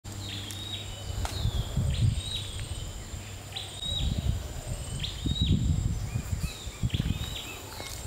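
Forest ambience: a string of short, high bird calls, many with a quick downward hook, over a steady high insect drone and an irregular low rumble.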